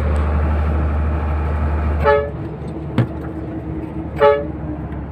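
Truck horn giving two short toots about two seconds apart over the steady low drone of a HOWO tractor head's diesel engine heard from the cab. A single sharp click comes between the toots.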